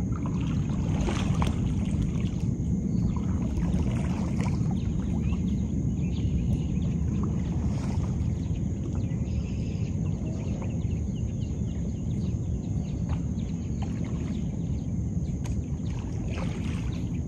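Steady low wind rumble on the microphone, with faint scattered splashes and knocks from a paddle worked beside a plastic sit-on-top kayak.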